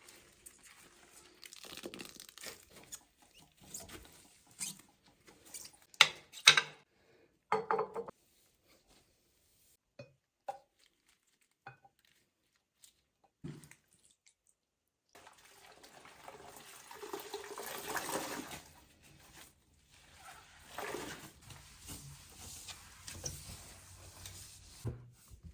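Kitchen handling sounds: scattered knocks and clicks, then from about the middle water running at a sink for roughly ten seconds while things are handled under it.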